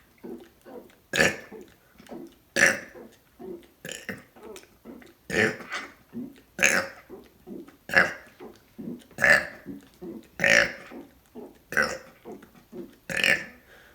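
A person burping over and over, one loud burp about every second and a half, about ten in all, with fainter short sounds between them, as part of a run of a hundred burps.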